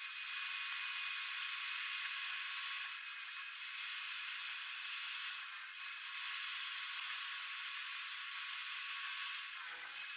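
Table saw running while a crosscut sled carries an MDF panel through the blade, heard only as a thin, steady hiss with its low rumble cut away.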